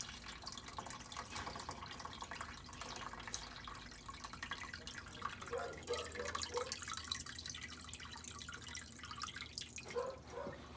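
Leftover water dripping and trickling from the opened drain-filter outlet at the bottom of a Whirlpool Duet front-load washer into a pan, a steady patter with a few plinks about halfway through. The water is standing in the machine because its drain pump has failed.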